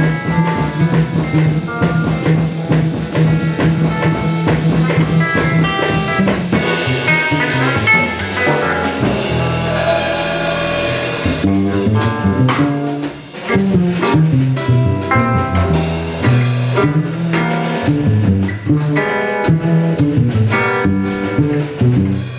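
A jazz-rock trio plays live: electric hollow-body guitar through an amp, upright double bass and drum kit, improvising together. Midway the band holds a sustained, washy swell. After a brief drop, the playing turns busier and more rhythmic.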